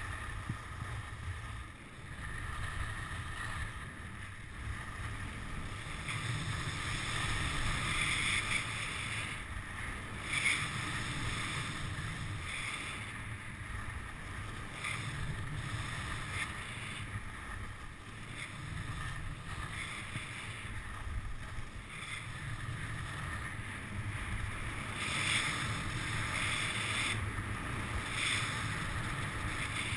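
Wind rushing over the microphone of a camera carried by a skier on the way down, with ski edges scraping on the snow in repeated turns that swell every second or two.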